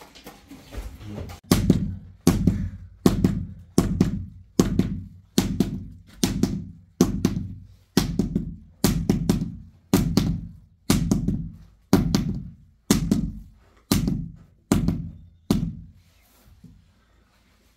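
A steady run of about seventeen heavy, dull blows, evenly spaced a little under a second apart, each with a short low boom after it. The blows begin about a second and a half in and stop near the end.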